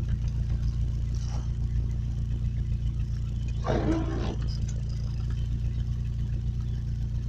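A vehicle engine running steadily, heard from inside the cab as a low hum, with a brief louder scraping noise about halfway through.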